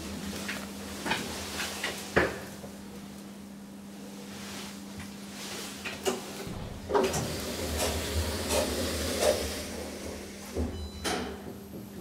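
Lift car's stainless-steel sliding doors closing, with several clicks and clunks from the door mechanism over a steady low hum.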